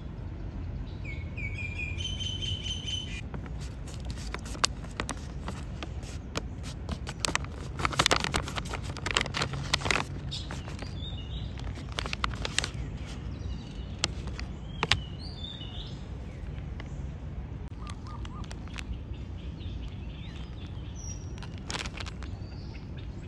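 Birds chirping now and then over a steady low rumble, with a run of sharp clicks and crackles through the middle that is loudest about eight to ten seconds in.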